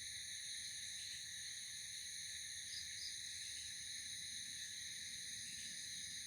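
Steady, unbroken high-pitched trilling of crickets in a night chorus, with two short chirps about three seconds in.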